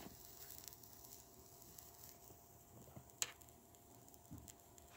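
Near silence: room tone with a faint steady hum and a single sharp click about three seconds in.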